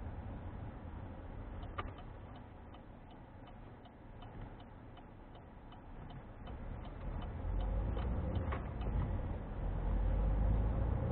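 Inside a car's cabin: the engine and road noise drop low as the car slows for a junction while the turn-signal relay ticks steadily, then the engine and tyre rumble rise as the car pulls away about seven seconds in.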